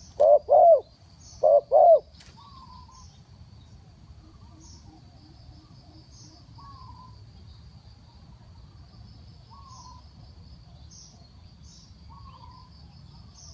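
Spotted dove cooing: two quick pairs of loud, low coo notes in the first two seconds, then only faint short calls every couple of seconds. A steady high-pitched hum with regular chirps runs underneath.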